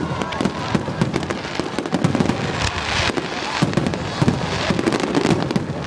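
Aerial fireworks shells bursting in a rapid, dense run of sharp bangs, several a second.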